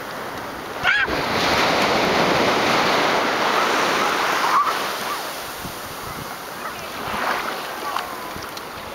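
Shallow surf washing up over flat wet sand, swelling in two long rushes as the waves run in and ease off. A brief high-pitched cry sounds about a second in.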